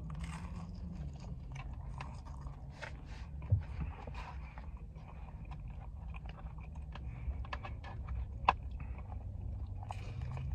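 A person biting and chewing crunchy food close to the microphone: many small crisp crunches and wet mouth sounds, with a couple of sharper cracks, over a low steady hum.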